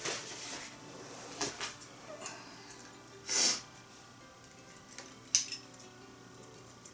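Cookware being handled: a small iron pot and utensils clinking and scraping in a few short bursts, with a sharp clink about five seconds in.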